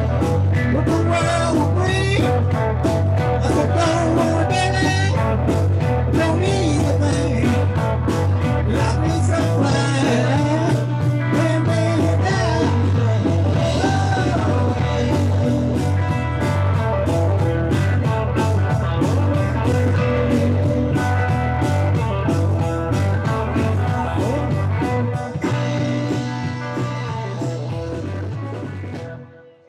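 Live rock band playing: electric guitar, bass and drum kit with a steady beat, fading out near the end.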